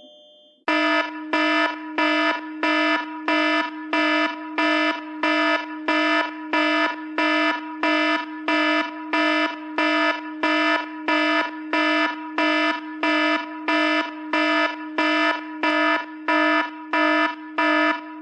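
iPhone ringtone: a buzzy electronic alarm tone pulsing on and off about twice a second, starting just under a second in.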